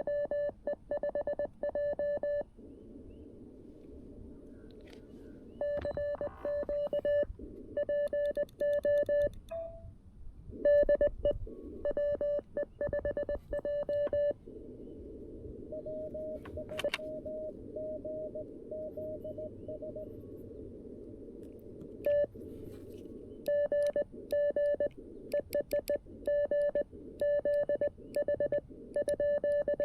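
Morse code sent as a keyed sidetone from a CFT-1 CW transceiver: runs of dots and dashes on one steady mid-pitched tone. Between the runs the receiver opens to band hiss, and fainter Morse at a slightly higher pitch comes through, which is the other station answering.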